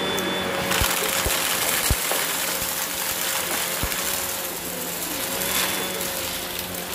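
Shark DuoClean vacuum cleaner running on carpet: a steady motor hum and whine under a rush of air that grows louder about a second in. Four low thumps fall in the first four seconds as the head is pushed about.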